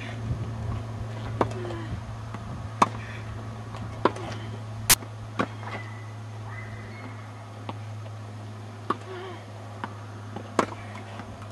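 A tennis ball being struck by rackets and bouncing during a rally: a series of sharp, hard pops, several spaced about a second and a half apart, over a steady low hum.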